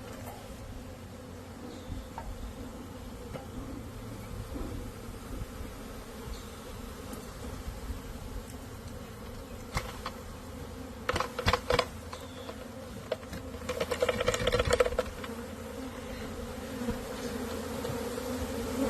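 Honeybee swarm buzzing as a steady hum, with a couple of short bursts of knocks and clatter about two-thirds of the way through as the swarm is dumped from the trap into the hive.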